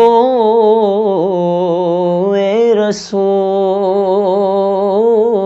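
A solo male voice singing a naat unaccompanied, drawing out long melismatic notes with wavering ornaments. There is one short break for breath about three seconds in.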